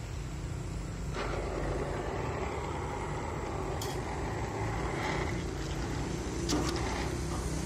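Oxy-acetylene welding torch flame hissing as it welds a patch onto a rusted-through car fender, the hiss growing stronger about a second in and easing after about five seconds. A few sharp clicks come near the end, over a steady low rumble.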